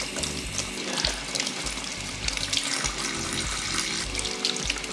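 Kitchen tap running into a stainless steel sink, the water splattering as vegetables are rinsed by hand under the stream. Background music with a steady bass line plays along with it.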